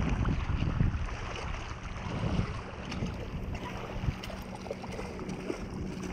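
Wind buffeting the microphone, heaviest in the first second, over small waves lapping at the water's edge.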